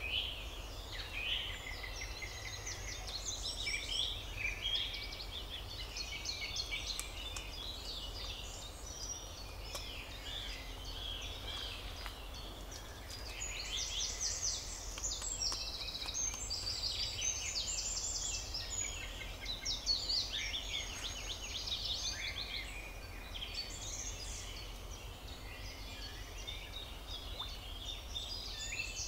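Songbirds singing in the trees: several overlapping songs of quick chirps and trills that crowd together most densely in the middle. A steady low rumble lies underneath.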